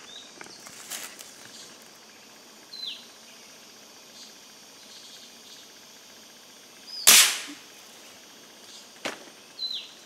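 A single sharp shot from a scoped hunting rifle fired upward into the trees about seven seconds in, with a short fading tail. A bird gives short high falling chirps a few times.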